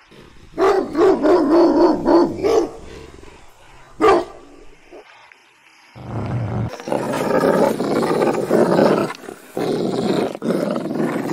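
Large guard dog barking and growling aggressively at a stranger at its gate: a quick run of barks near the start, one sharp bark about four seconds in, then deep, rough barking and growling from about six seconds on. This is territorial guarding.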